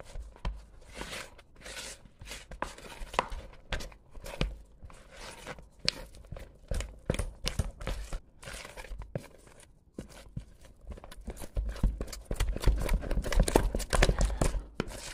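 Wooden spoon stirring a shaggy, just-mixed bread dough of flour, water, salt and yeast in a mixing bowl: irregular scraping and knocking against the bowl, busier and louder in the last few seconds.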